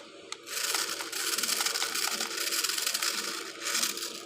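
Toy remote-control car's small electric motor and plastic gearbox running with a rough, rattling whir, starting after a click and dipping briefly near the end.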